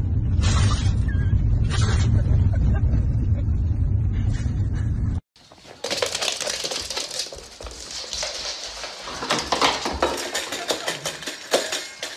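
A husky gives a few short howling cries over the steady low rumble of a moving car. After a sudden cut, a dog eats from a steel bowl, with irregular clinking and clattering against the metal.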